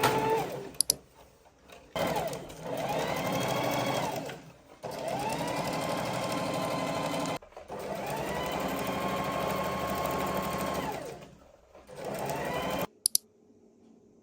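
Electric sewing machine running in about four runs of a few seconds each. Each run speeds up, holds steady, then slows to a stop. Sharp clicks come near the start and near the end.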